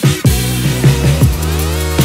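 Electronic background music with heavy bass and punchy drum hits, and a falling sweep in the second half.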